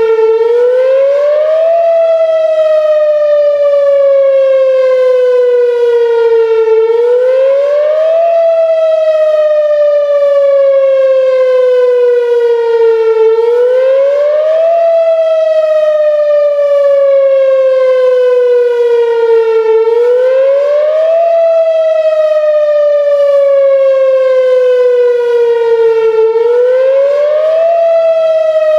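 Whelen Vortex R4 'Finback' outdoor warning siren sounding its wail tone. The pitch rises quickly over about two seconds, then falls slowly over about five, repeating about every six and a half seconds. Its rotator is broken, so the loudness holds steady instead of swelling and fading as the siren turns.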